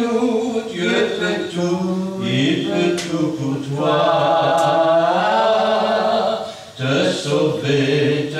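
A hymn being sung, a man's voice leading, with long held notes.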